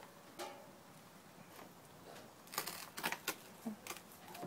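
A paper bag and a plastic bin liner rustling in a few short crinkly bursts, most of them about two and a half to three seconds in, while a hen held in the bag is cut at the neck.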